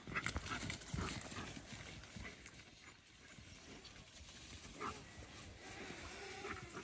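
A dog moving fast through tall brush: irregular footfalls and rustling of vegetation, fairly faint.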